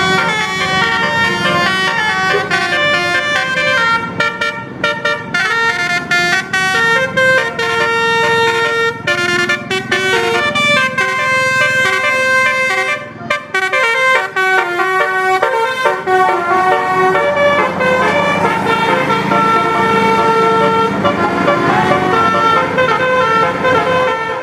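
Bus basuri horn, a multi-tone musical horn, playing a tune as a run of stepped held notes with a short break about 13 seconds in.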